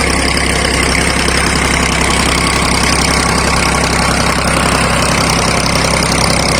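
Second-hand diesel tractor engine running steadily at idle, a loud, even clatter with no change in speed.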